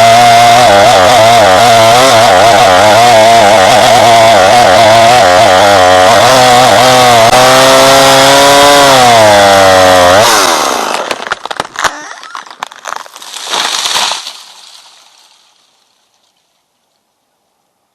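Two-stroke chainsaw running hard at high revs, its pitch wavering, then dipping and climbing again before it cuts off about ten seconds in. Scattered clattering and crackling follow and fade away a few seconds later.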